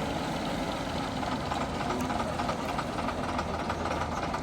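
Vintage bus engine idling steadily, with an even rhythmic beat.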